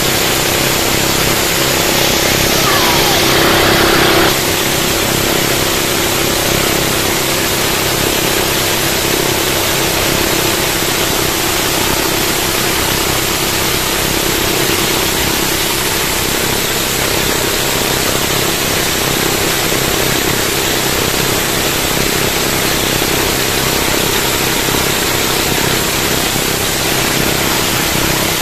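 Twin Honda 16 hp boat engines running steadily at speed, mixed with the rush of water and spray along the hull of a fiberglass outrigger boat. A louder, hissier rush of spray lasts a couple of seconds near the start.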